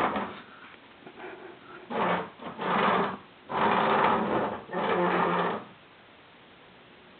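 Wooden stool legs scraping and juddering across a tile floor as a baby pushes and pulls the stool. There are about five short, grinding scrapes, a longer one about three and a half seconds in, then it stops.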